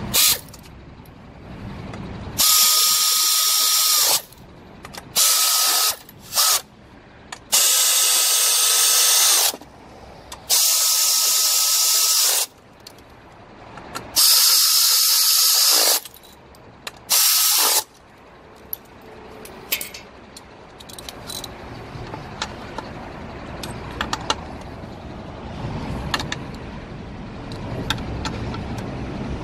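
Power ratchet run in seven short bursts, a loud hiss with a steady high whine, tightening the nuts that hold a new fan clutch to a truck's plastic cooling fan. After that, the light clicking of a hand ratchet snugging the nuts down.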